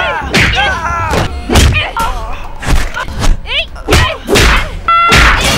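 Movie fight soundtrack: a quick string of punch and kick impact hits, about one every half second, mixed with the fighters' short grunts and yells.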